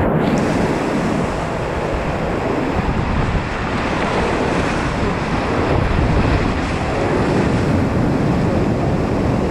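Whitewater rapids rushing loudly and steadily around a kayak running the creek, right at the camera's microphone. The sound is muffled for a moment at the very start, then the full hiss of the water opens up.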